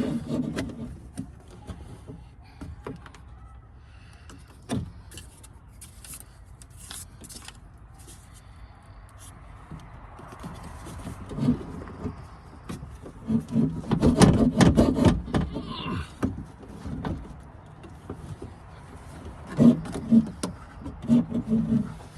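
Hands working on the inside of a car door with its trim panel off: scattered clicks and knocks of plastic and metal parts, with a louder spell of rattling and knocking about two-thirds of the way in as a stuck part is worked at.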